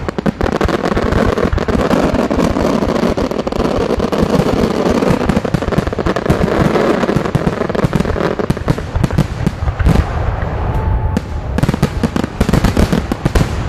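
Large aerial firework display shells bursting, with a dense, continuous crackle of countless rapid small bangs from the exploding stars. Sharper, more separate bangs stand out in the last few seconds.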